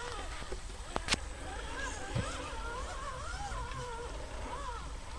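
Electric motor of a radio-controlled crawler truck whining, the pitch rising and falling with the throttle as it crawls over rough ground, with two sharp clicks about a second in.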